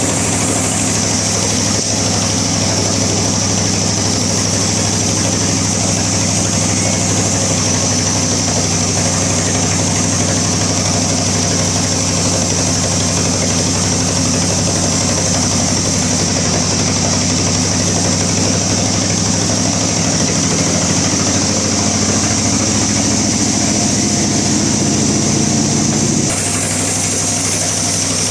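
Bandsaw running steadily with its blade cutting through a log, a loud continuous drone with a hiss from the cut. Near the end the sound shifts and drops a little.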